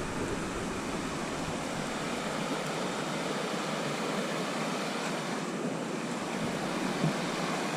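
Rushing river water: a steady, even rush of a fast-flowing river below a waterfall.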